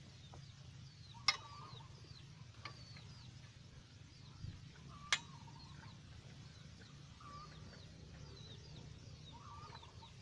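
Small birds chirping over and over, with a few chicken clucks, over a steady low hum. Two sharp pops from the wood cooking fire stand out, about a second in and again about five seconds in.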